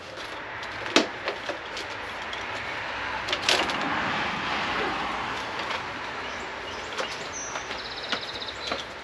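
Rustling and handling noise of wiring and cables being pulled and moved around the back of an outboard motor, with several sharp clicks and knocks and a quick run of rapid ticks near the end.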